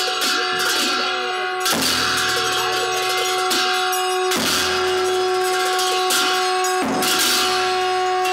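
Bon ritual music: a long held wind-instrument tone on one steady pitch, with a large frame drum and cymbals struck together about every two and a half seconds, the cymbals ringing on after each stroke.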